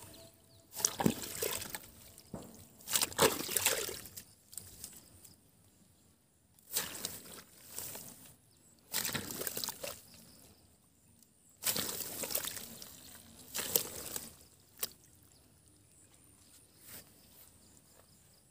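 A hand hoe chopping into waterlogged mud, each stroke a wet squelch and slosh, coming in irregular strokes with pauses between, weaker toward the end.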